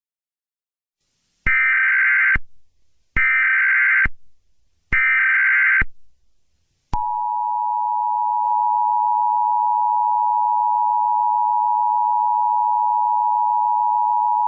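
Emergency Alert System tones: three harsh data bursts of the SAME header, each just under a second with short gaps, then about 7 seconds in the steady two-tone EAS attention signal starts and holds.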